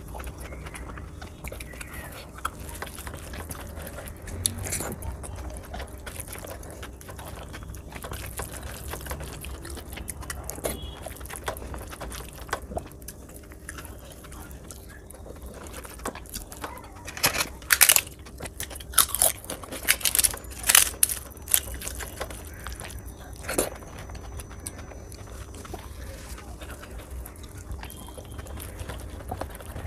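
Close-miked eating by hand: chewing, and rice and dal being mixed on a steel plate, over a low steady hum. A run of sharp crunches comes a little past halfway.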